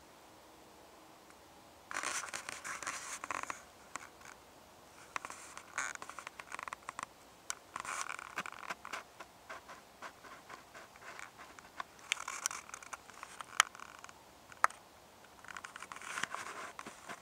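Irregular scratching and rustling in short bouts, starting about two seconds in, with a few sharp clicks.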